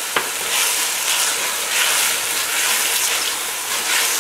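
Diced ham, peas and green onion sizzling hard in oil in a stainless steel pot, freshly splashed with soy sauce, with the hiss swelling and easing as a spatula stirs them. One sharp click just after the start.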